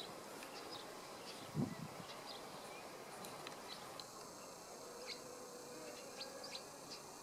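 Faint insect buzzing with scattered short high chirps, and one soft low thump about a second and a half in.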